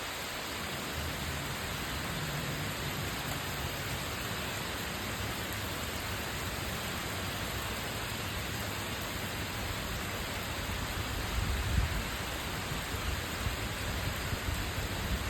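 Steady hiss of heavy rain, with a few low gusty rumbles about twelve seconds in.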